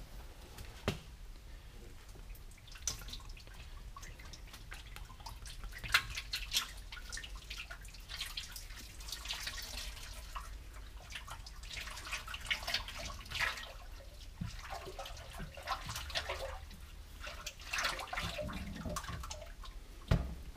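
ISO 46 hydraulic oil pouring from a plastic gallon jug into an open machine gearbox, the stream splashing onto the gears in long stretches. A few sharp knocks from handling the jug, the loudest about six seconds in.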